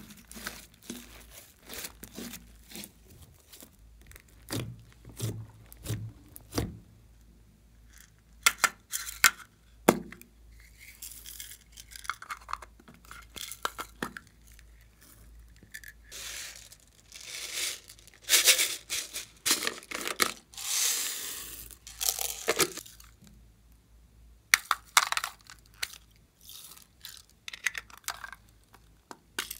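Hands squeezing and stretching thick slime, with many small sharp clicks. Then small plastic toy containers are clicked open and sprinkles and beads are poured from them onto the slime in a glass dish, in noisy stretches of a second or two.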